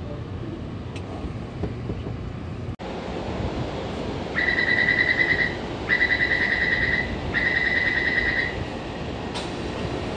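Taipei Metro door-closing warning: three rapid, pulsing beeps of about a second each, over the steady hum of a train standing at the platform. A sharp click follows near the end.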